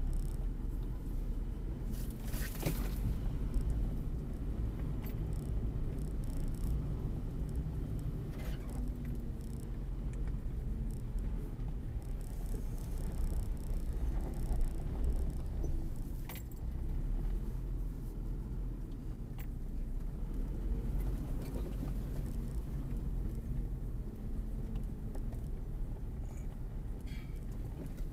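Jeep Grand Cherokee ZJ driving slowly along a bumpy dirt track, heard from inside the cabin: a steady low engine and drivetrain rumble, with a few sharp clicks and rattles as the body jolts over bumps.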